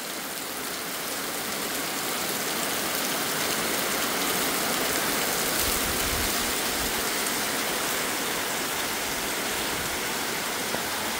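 Heavy rain falling steadily: an even, constant hiss.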